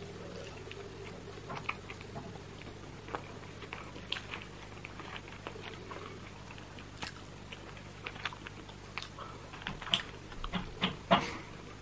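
Fingers pulling apart roasted chicken inside a plastic roasting bag: scattered wet, sticky clicks and tearing of meat and skin, with a louder cluster of crackles near the end.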